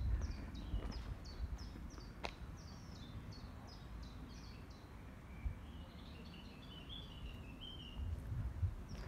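Songbirds in the trees: a small bird repeats a short high chirp that slides downward, about three a second, for the first half, then a second bird gives a lower warbling phrase, over a faint low outdoor rumble.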